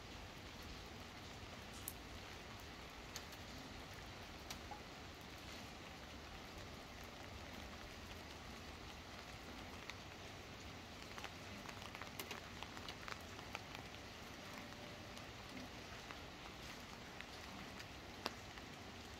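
Steady rain falling on a paved street, a fairly quiet even hiss. Scattered sharp ticks of drops land close by, more of them about two-thirds of the way through.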